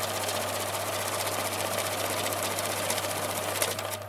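Electric banknote counting machine riffling through a stack of paper bills: a fast, even run of flicking ticks over a steady motor hum.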